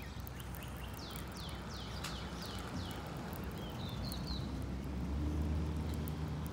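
A songbird singing a run of clear down-slurred whistles, about three a second, over the first three seconds, followed by a few short higher notes. A low steady rumble lies underneath and grows louder about five seconds in.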